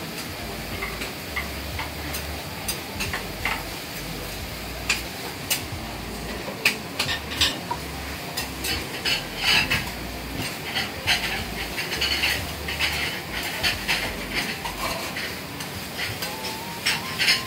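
Metal spatulas scraping and clinking irregularly against a steel teppan griddle, over the steady sizzle of noodles and okonomiyaki frying on the hot plate.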